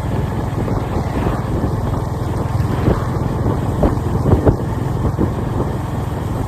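Honda CB350RS's single-cylinder engine running steadily, a rapid even exhaust beat, with a few sharper louder cracks about four seconds in.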